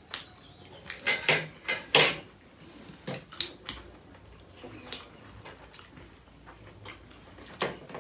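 Metal forks clinking and scraping against ceramic plates as two people eat momos: irregular sharp clinks, the loudest cluster about one to two seconds in, then sparser taps.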